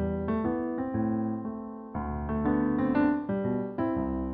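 Solo piano background music, new notes and chords struck about every half second.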